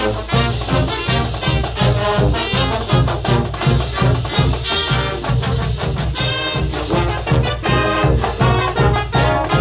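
A small brass band, trumpets over a sousaphone, playing a lively swing-style tune with a steady bouncing bass beat.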